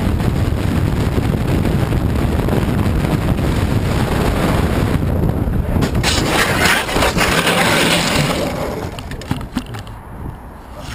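Vehicle road noise, a steady rumble as heard from inside a moving car. About six seconds in a louder, rough hissing noise with clattering rises over it, then dies away about two seconds later as the overall level drops.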